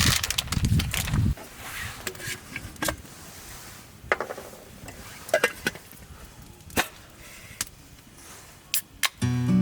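Rustling, handling noise for about the first second, then scattered sharp knocks and clinks of camp gear being handled. Music with guitar starts near the end.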